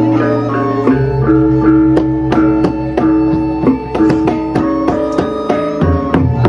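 Balinese baleganjur gamelan playing in lelambatan style: ringing bronze gong and gong-chime tones held over a deep gong tone, with frequent sharp drum and cymbal strokes. The deep tone changes pitch about a second in and again near the end.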